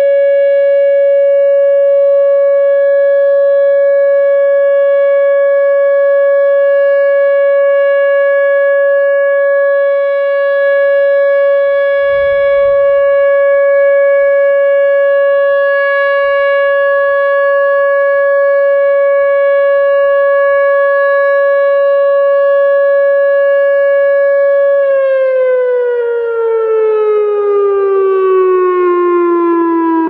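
Whelen WPS-2906 electronic outdoor warning siren sounding its steady Alert tone during a test: one loud, held pitch with overtones. Near the end the pitch glides steadily downward, a simulated wind-down as the signal ends.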